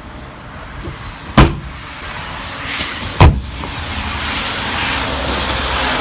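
Two hard thumps on a fifth wheel's thick exterior storage bay door, about two seconds apart. A rushing noise then swells over the last two seconds.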